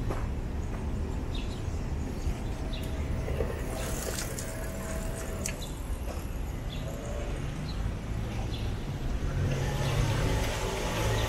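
Street ambience: a steady rumble of traffic with birds giving short, high chirps every second or two. A few sharp clicks come through mid-way, and a car grows louder near the end as it approaches.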